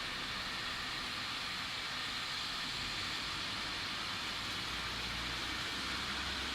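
Skid steer loader running, a steady, even hiss-like machine noise with a faint low rumble that grows slightly near the end.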